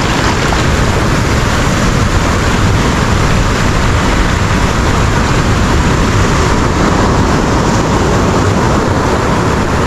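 Waves breaking and surf washing up the sand and against a concrete-block seawall: a loud, steady rush of water.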